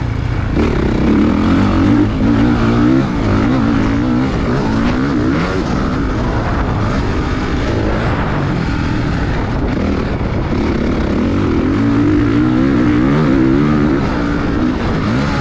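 Motocross dirt bike engine revving, its pitch climbing and dropping again and again with the throttle.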